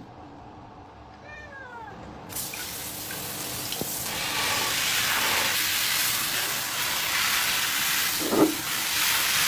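A cat meows once with a falling cry. About two seconds in, water starts spraying with a steady hiss that grows louder, likely from a shower head rinsing the cat. The cat gives another short meow near the end.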